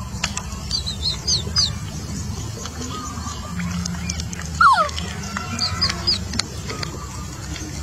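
Small animals calling: several quick high chirps near the start and again near the end, and a louder whimper-like cry falling in pitch about halfway through, over a steady low rumble.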